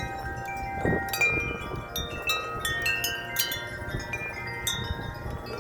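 Wind chime struck over and over by strong gusts, many overlapping ringing tones of different pitches sustaining and layering, with wind noise underneath.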